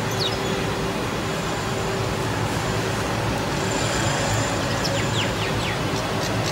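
Steady, traffic-like low rumble of background noise with a faint steady hum. A few short, high, falling chirps from small birds come just after the start and again around five seconds in.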